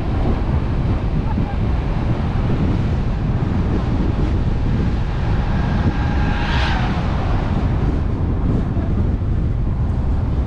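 Wind noise buffeting the microphone of a camera on a moving car, over steady low road rumble, with a brief louder swell of higher noise about six and a half seconds in.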